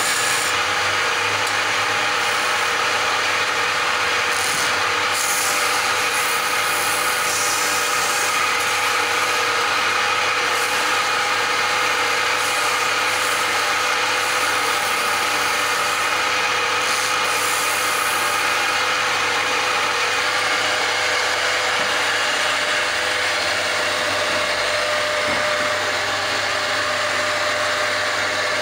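Wood lathe running steadily with its motor hum, a wooden spindle spinning while a hand tool scrapes and rubs against the turning wood.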